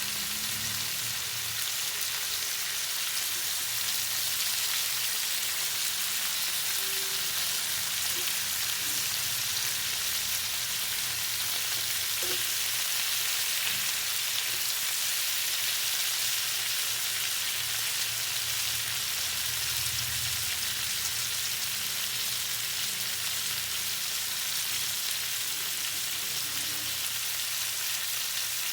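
Food frying in hot oil: a steady, dense sizzle.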